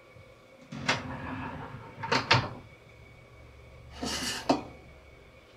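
A kitchen cupboard door being opened, with a click and then two knocks. About four seconds in, a mug scrapes briefly across the shelf and ends in a sharp clink as it is taken out.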